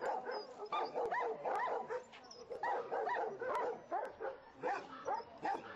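Dogs at a shelter barking and yelping, short calls one after another with hardly a break, several dogs overlapping.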